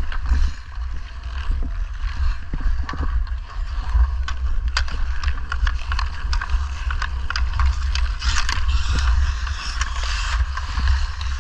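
Ice hockey skates scraping and carving on rink ice, with scattered sharp clicks of sticks on puck and ice. A steady low wind rumble on the microphone of a camera worn by a moving skater lies under it all.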